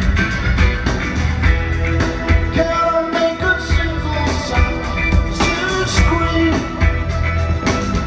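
Live rock band playing through a large amplified PA, heard from the audience: a steady drum beat under held keyboard and guitar tones, with a male lead vocal.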